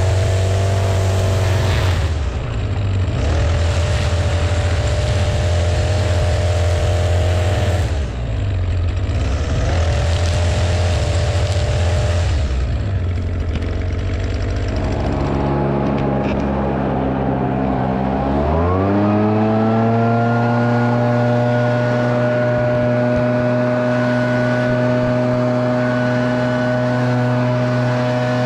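Echo two-stroke string trimmer running while edging grass along a sidewalk. The engine eases off briefly a few times, then speeds up with a rising whine about two-thirds of the way in and holds a steady high pitch.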